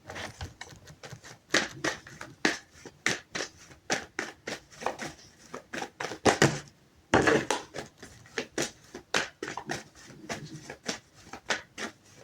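Tarot cards being shuffled and handled by hand: an irregular run of quick papery snaps and rustles, several a second, with a fuller rustle about six to seven seconds in.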